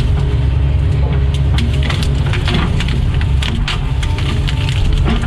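Doosan DX140 excavator's diesel engine running steadily under load, with many small cracks and snaps of wood and branches as the machine works at a fallen tree branch.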